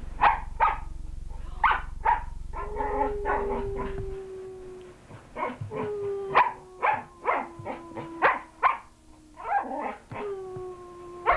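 A dog whining in long, slowly falling whines, mixed with quick short yips, two or three a second.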